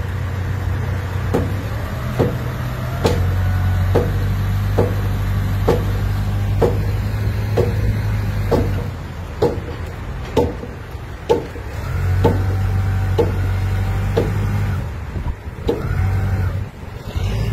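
Forklift engine running, revving up and easing off in spells, with a faint whine during the harder running. A sharp click repeats about once a second over it.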